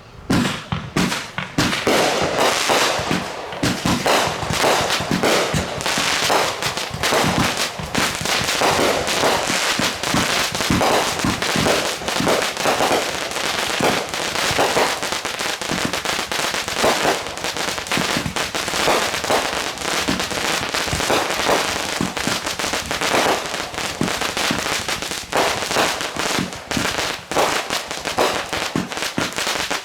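Consumer fireworks going off in a rapid, continuous barrage of bangs and crackles, starting suddenly and keeping up without a break.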